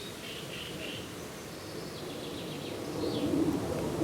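Small birds chirping in short high calls over steady outdoor background noise. The background grows louder near the end.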